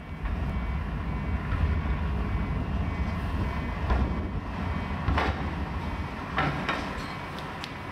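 1958 Waggon und Maschinenbau diesel railbus approaching, its engine running as a steady low rumble, with several sharp clicks of the wheels over rail joints in the second half.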